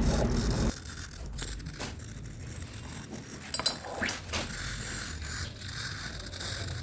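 A piece of sodium reacting on water, hissing and fizzing as it gives off hydrogen, with a few sharp crackling pops about halfway through.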